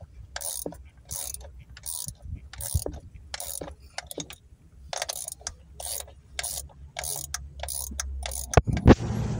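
Hand ratchet wrench clicking in short repeated strokes, about two a second, as bolts are tightened down, with a brief pause midway. A few sharp knocks near the end.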